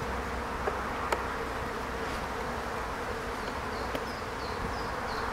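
Honey bees buzzing steadily over an open hive during an inspection, with a few light clicks of the hive tool against the wooden frames.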